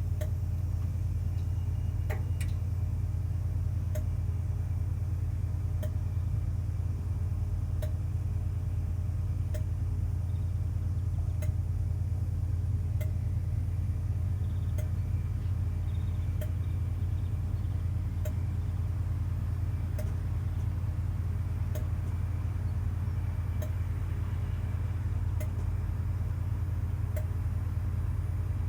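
Diesel train engine idling with a steady low drone. A faint tick repeats about every two seconds.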